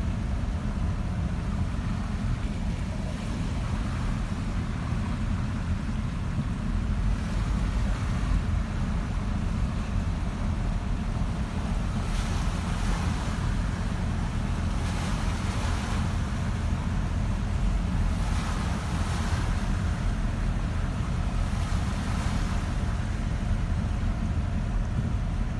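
Vehicle driving through deep floodwater: a steady low rumble of engine and road, with water rushing and splashing against the vehicle in repeated swells every few seconds from about halfway through.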